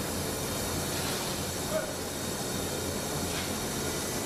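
Steady steel-foundry machinery noise: a constant low hum under an even rushing hiss.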